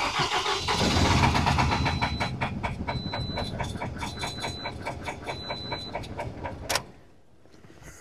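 Car engine started and running with one ignition coil unplugged, so one cylinder is dead-misfiring. It fires up right away, runs with a quick even pulse and is shut off with a click about seven seconds in.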